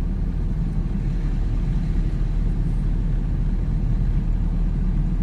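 Steady low rumble of a car driving slowly along a road, engine and tyre noise without change.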